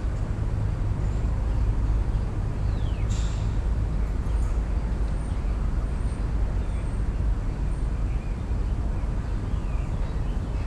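Steady low rumble, with a few faint high chirps and a short sharp sound about three seconds in.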